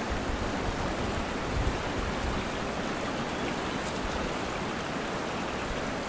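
Distant road traffic heard through the woods: a steady, even rush of noise with a low rumble underneath.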